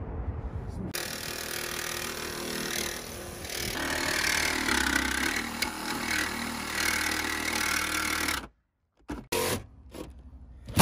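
Cordless SKIL jigsaw cutting a round hole through the sheet-steel side panel of a Mercedes Sprinter van: the reciprocating blade makes a steady, harsh buzz on the metal that grows louder about three seconds in. It stops abruptly near the end, followed by a few short knocks.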